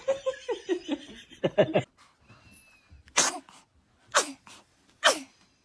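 A newborn baby sneezing three times in quick succession, about a second apart. Each sneeze is a short, sharp burst that ends in a brief falling squeak.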